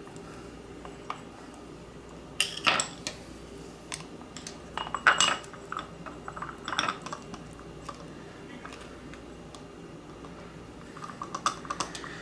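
Small metal hand tools, a screwdriver and needle-nose pliers, clicking and clinking against a lamp socket and its terminal screw as a wire is bent into a hook around the screw. The clinks come in scattered clusters, loudest a few seconds in and about five seconds in, with another run near the end.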